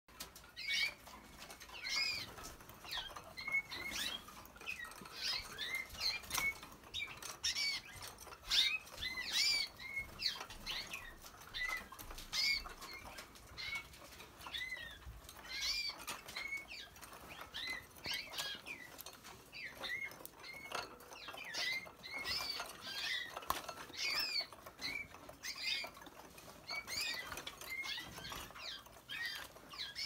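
Several Waterslager canaries chirping: short arched notes, repeated irregularly and overlapping, with occasional sharp clicks.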